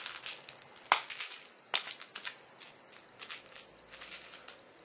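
A cat batting and pouncing on a toy mouse: an irregular run of sharp clicks, taps and scuffs, the loudest about a second in and again just before two seconds, then thinning out and stopping shortly before the end.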